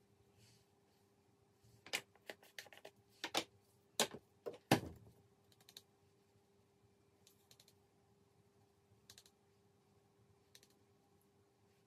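A quick run of sharp small clicks and taps from handling a makeup powder compact and brush, loudest about five seconds in, then a few faint ticks. A faint steady hum lies underneath.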